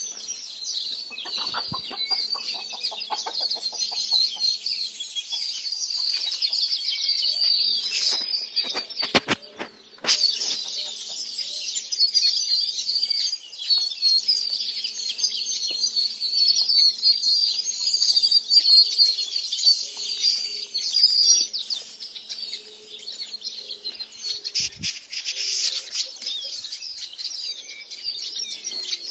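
Many small birds chirping and twittering continuously, with chickens clucking now and then. A couple of dull thumps, one about a third of the way in and one near the end.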